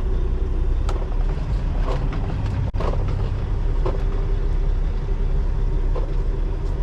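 Semi-truck diesel engine running at low speed, heard from inside the cab as a steady low rumble, with light ticks about once a second.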